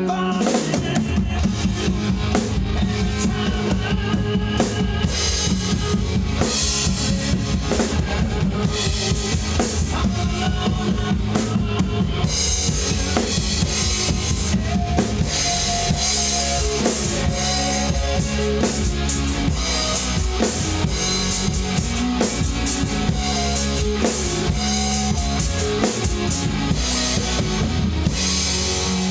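Acoustic drum kit played in a steady rock beat of kick, snare and cymbals, coming in just after the start, over a recorded rock song playing along.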